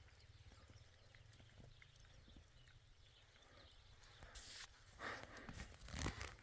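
Near silence with a faint low rumble, then from about five seconds in a short run of soft knocks and rustling, loudest about six seconds in.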